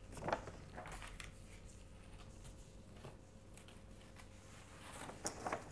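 Faint rustling and handling of paper sheets with a few soft taps, as the picture behind a paper window frame is swapped; a little louder just after the start and again near the end.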